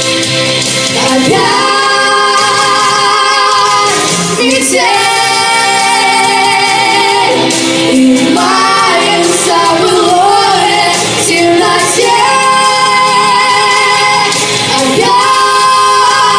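Female singing in long held notes with vibrato over a pop backing track, in several phrases with short breaks between them.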